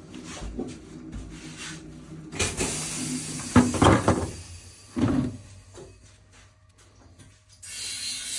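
Wheel balancing machine at work: a steady mechanical hum, then several knocks and clattering, as of its hood or parts being handled, before it goes quiet near the end.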